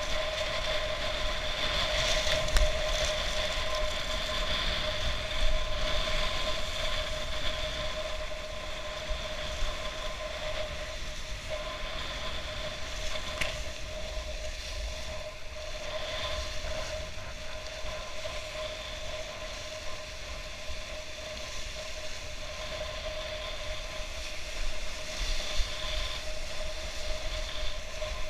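Wind buffeting an action camera's microphone while kitesurfing through surf, with water rushing and splashing beneath it. A steady high-pitched whine runs underneath all the way through.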